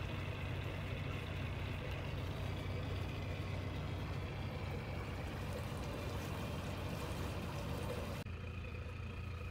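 A motorboat's engine running steadily at low revs as the boat approaches a lock, a constant low hum under a steady hiss. Near the end the hiss cuts off abruptly while the engine hum carries on.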